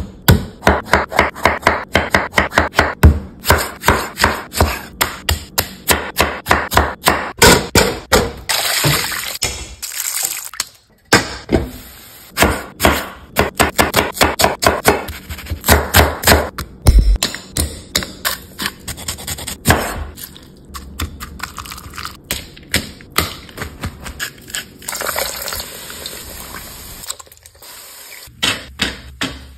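Kitchen knife chopping avocado and red onion on an end-grain wooden cutting board, in quick runs of sharp knocks about four a second, with a short break around ten seconds in. Near the end, pork belly frying in hot oil.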